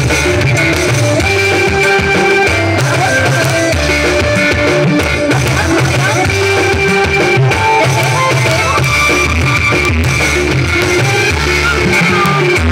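Loud dance music over a PA system, with a steady drum beat and bass and a woman singing into a microphone.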